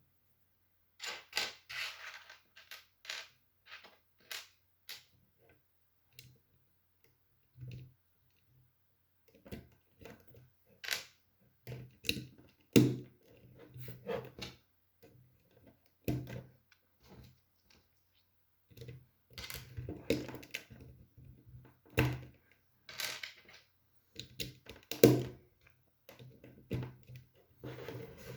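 LEGO plastic pieces being handled and pressed together: irregular sharp clicks and knocks with short pauses between them.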